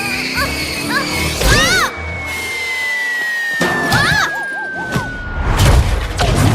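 Cartoon action soundtrack: music with sound effects. Quick swooping chirps, a long, slowly falling whistle from about two seconds in, and several crashes and thuds, the loudest near the end.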